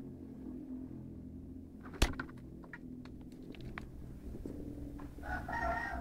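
A sharp knock about two seconds in, the loudest thing here, followed by a few lighter clicks. Near the end a rooster starts crowing, one long drawn-out call.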